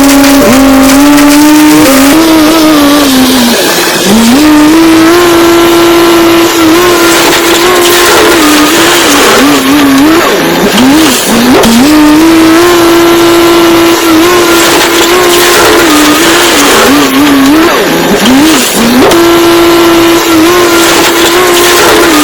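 A loud engine revving, its high note holding steady and then, several times, dropping and swooping back up.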